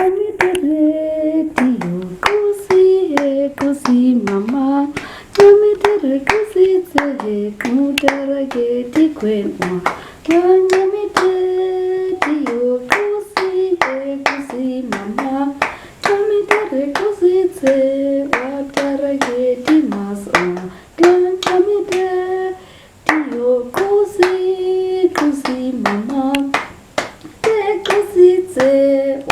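Traditional Hai//om song: a sung melody over steady, rhythmic hand clapping.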